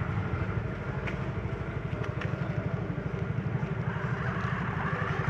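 A motor running steadily, with a fast, even low pulse and a few faint clicks.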